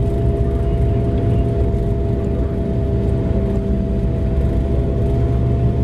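Mining haul truck's diesel engine and drivetrain heard from inside the cab while driving: a steady low rumble with a constant whine held on top.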